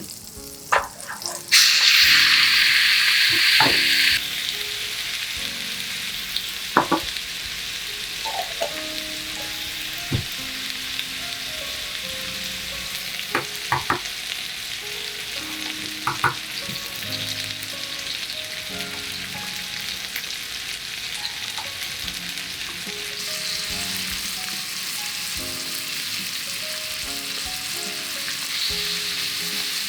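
Food frying in hot oil in an iron frying pan. A loud burst of sizzling comes about one and a half seconds in, as ingredients go into the pan, and it eases after a few seconds into a steady sizzle. A utensil taps against the pan now and then.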